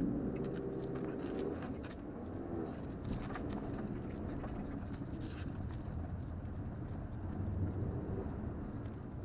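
Cabin noise of a 2020 Toyota RAV4 XLE driving on a sandy, rough dirt track: a steady low engine and road hum with tyres on sand and gravel, and scattered light clicks and knocks from bumps.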